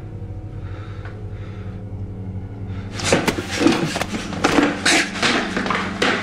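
A steady low hum, then about halfway in a quick run of loud knocks and clatters.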